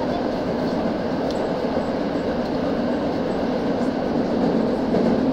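Tokyo Metro 9000 series subway train running through a tunnel, heard from inside the car: a steady rumble of wheels on rails.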